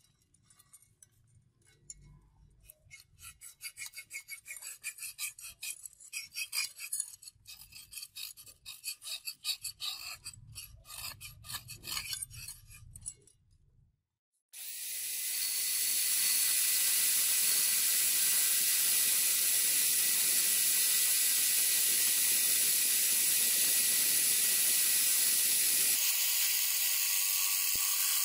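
Repeated hand strokes of an abrasive rubbing along a steel cleaver blade, two or three strokes a second. About halfway through they stop, and after a short silence a rotary tool starts up and runs with a steady high hiss and thin whine, its small bit working the blade next to the brass handle.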